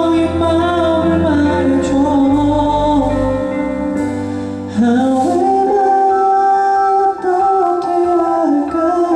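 A male singer singing a slow ballad with long held notes over instrumental accompaniment; the bass drops out about four and a half seconds in, leaving the voice and lighter backing.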